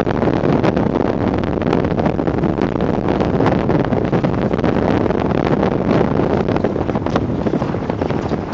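Wind buffeting a phone's microphone in a steady rumble, with fabric rustle and small handling knocks scattered through it.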